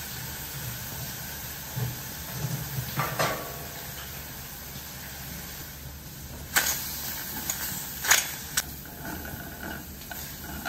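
Squid pieces hissing and sizzling in a hot nonstick pan as they give off their water and steam. A few sharp clicks of a spatula against the pan come in the second half.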